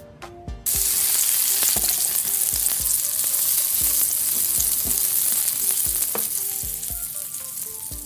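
Sizzling sound effect of food frying on a grill, added in post. It cuts in suddenly about a second in and slowly fades toward the end, over light background music with short plucked notes and a steady beat.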